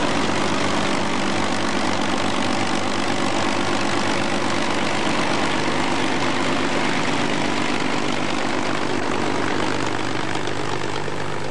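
Avro Lancaster bomber's four Rolls-Royce Merlin V12 engines running steadily as the aircraft taxis, a constant multi-engine propeller drone.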